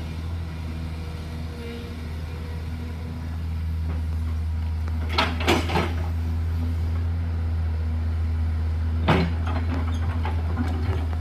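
JCB 210LC excavator's diesel engine running steadily, picking up a little about three and a half seconds in, with brief clanks and scrapes of the bucket working gravel and rock around five seconds in and again near nine seconds.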